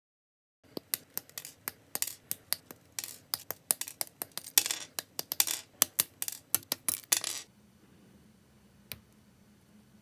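Plastic model-kit runner being snipped with side cutters: a quick, irregular run of sharp clicks and snips mixed with a few longer scratchy sounds of the plastic being handled. It stops about seven seconds in, followed by one more click near the end as parts are fitted.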